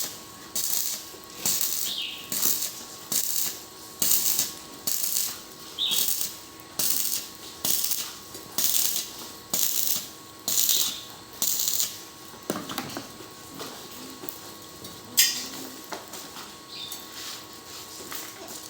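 Welding arc crackling in short, evenly spaced bursts, about one a second, as a weld is laid in stitches. The bursts stop after about twelve seconds, and a single sharp knock follows a few seconds later.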